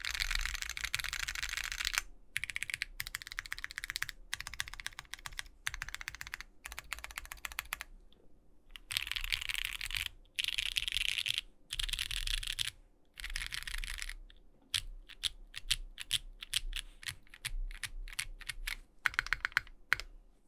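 Typing on a Bakeneko60 mechanical keyboard with lubed Durock Light Tactile switches, GMK keycaps and a carbon fiber half plate. It comes in runs of fast keystrokes with short pauses between them; over the last six seconds the keystrokes come in quicker, more separate flurries.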